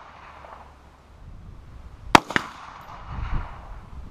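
One rifle shot from an AR-style rifle about two seconds in: a sharp crack with a second crack a fraction of a second after it, then a low rumble.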